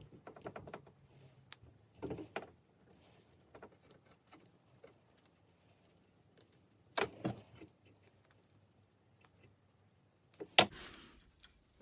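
Small clicks and clinks of wires and connectors being handled inside an opened Makita DSS611 cordless circular saw as a push-on wire is fitted to the battery holder terminal, with a few louder knocks about two, seven and ten and a half seconds in.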